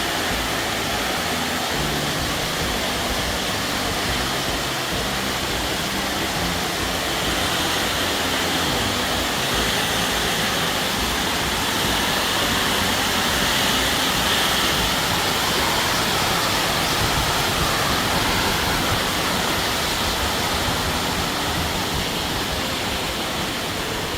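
Waterfall: a steady, dense rush of falling water.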